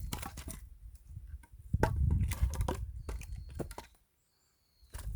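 Work on firewood: a few sharp wooden knocks and cracks among low rustling and shuffling. The sound drops out completely for about a second near the end.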